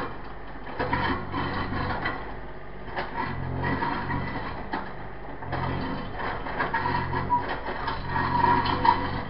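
Mini digger working: its engine runs and swells repeatedly under load, with scattered clanks and rattles from the machine.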